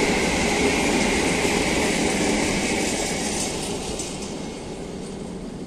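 Freight train of open-top coal wagons rolling along the rails as its last wagons go by. The rolling noise fades away over the second half.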